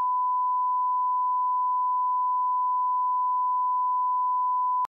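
Steady 1 kHz reference tone played over SMPTE colour bars, one unbroken pure tone that cuts off suddenly near the end.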